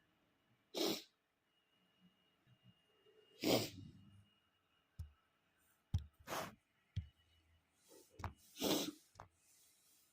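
A man's stifled sneezes, four short bursts in a row about two and a half seconds apart, with small clicks and breaths in between.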